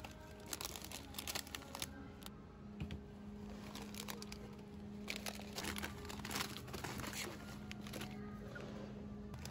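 Crinkling and rustling with many short clicks and knocks, over a steady low hum.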